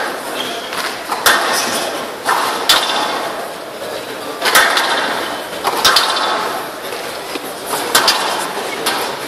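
Squash ball being struck: sharp knocks off rackets and court walls, echoing in a large hall, coming irregularly about one a second. A murmur of voices runs underneath.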